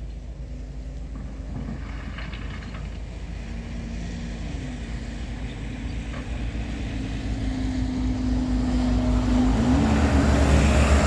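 An engine running and growing steadily louder, its pitch dipping and recovering twice, ending in a loud low rumble.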